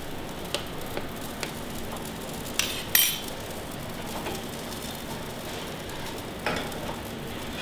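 Steady hiss of kitchen background noise with light metal clinks of a utensil against stainless steel pans and containers. The two sharpest clinks come about two and a half and three seconds in.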